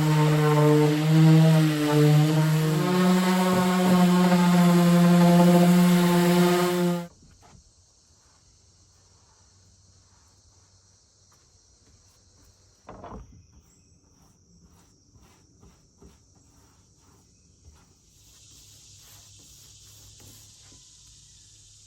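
A loud steady drone that steps up in pitch about three seconds in and cuts off suddenly about seven seconds in. After that, insects chirring quietly in the background, with one dull knock and a few faint ticks.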